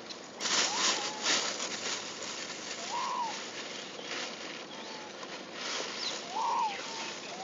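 A short animal call that rises and falls in pitch, repeated every one to three seconds at the same pitch. It is mixed with rustling, scuffling noise, loudest about half a second to a second and a half in.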